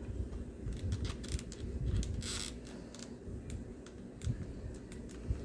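Scattered light clicks and taps of small RC truck parts being handled and worked loose by hand, with a brief scraping rustle about two seconds in.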